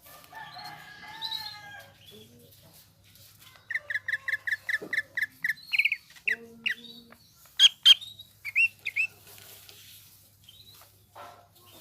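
Cucak ijo (green leafbird) singing: a quick run of repeated clear notes, about five a second, then varied sharp whistles and slurred calls, over a faint steady low hum.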